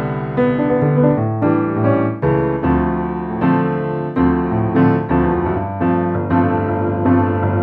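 Sampled grand piano from the free Piano in 162 soundfont, played from a digital piano keyboard: a slow piece of chords and melody, each note ringing on. It has a slightly untuned sound, like an unmaintained piano.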